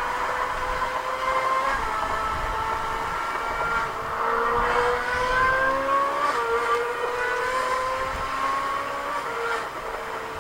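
LaFerrari V12 engine sound running at a steady pitch, then revving up in a slow rising sweep through the middle. The note drops suddenly about six seconds in and settles back to a steady pitch.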